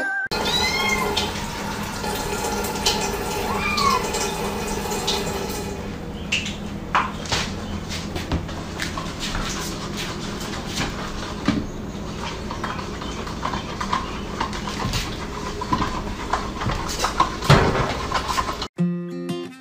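A cat meowing twice in the first few seconds. Then scattered clicks and rustling, with a kitten clinging to and climbing a person's sweatpants.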